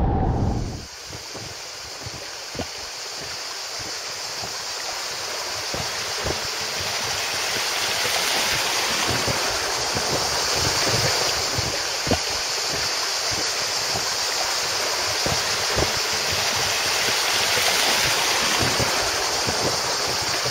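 Flowing river water, a steady rushing hiss.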